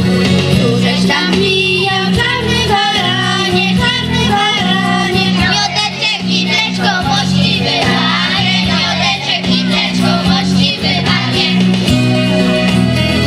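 Children singing a song over instrumental accompaniment, the melody wavering above a steady backing.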